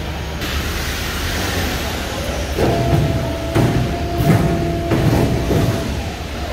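Veneer rip-saw machine running: a steady low hum with a hiss, joined in the second half by a steady whine and irregular knocks and clatter.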